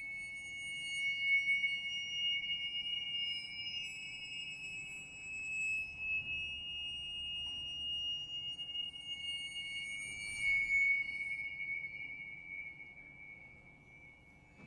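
Contemporary music for string quartet and Tibetan finger cymbals: high, steady ringing tones, renewed by a few fresh attacks, fading away near the end.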